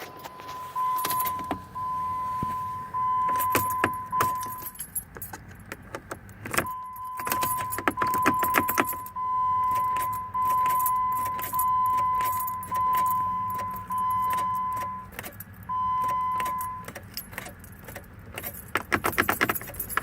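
A Jeep Grand Cherokee's dashboard warning chime sounds in a steady run of repeated tones. It stops about 5 s in, starts again about a second and a half later and ends a few seconds before the close. Keys jingle and click in the ignition throughout, thickest near the end.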